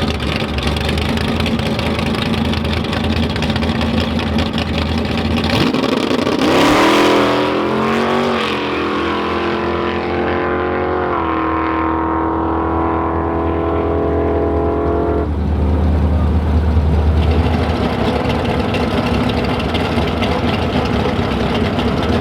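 Drag cars' big V8 engines rumbling at the line. About six seconds in, one launches with a loud sudden rise in revs, and its high engine note holds for several seconds as it pulls away. A lumpy rumble then returns.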